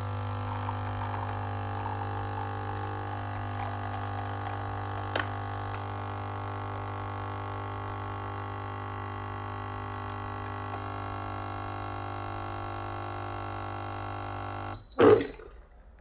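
Hibrew 4in1 capsule coffee machine's pump running with a steady hum while brewing an espresso capsule. It cuts off about fifteen seconds in, followed at once by a single loud clunk.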